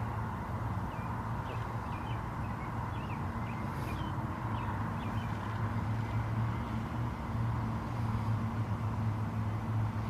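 Outdoor ambience: a steady low hum, louder in the second half, with a songbird chirping in short phrases during the first half.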